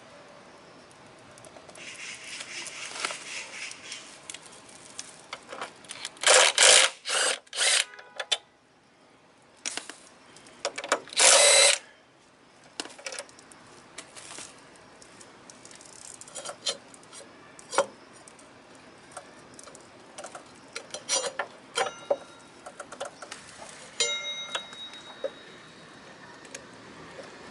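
Cordless power driver run in several short bursts and then one longer burst, taking out a scooter's front brake caliper mounting bolts. Scattered clicks and clinks of tools and metal parts between the bursts.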